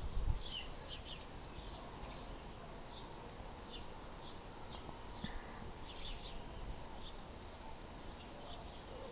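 Scattered short, high chirps of small birds, about one or two a second, over a faint steady hiss. A brief low rumble comes right at the start.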